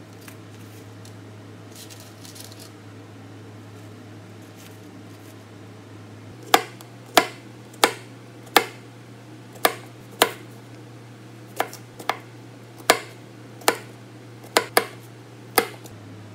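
Kitchen knife slicing through a cucumber onto a plastic cutting board: about a dozen sharp knocks, roughly one a second, starting about six seconds in, over a steady low hum.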